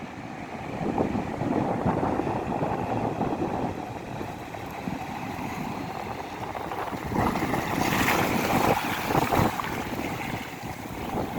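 Seaside wind and surf: a rushing noise that swells and eases, with wind buffeting the microphone, loudest a few seconds before the end.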